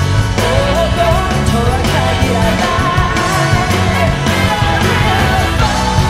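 A live band playing a rock song, with drums, bass and guitar under a sung lead melody.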